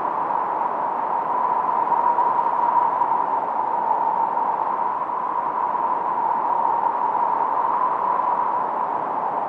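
Minimoog synthesizer's noise, shaped into a steady hiss with a narrow whistle-like band in the upper midrange.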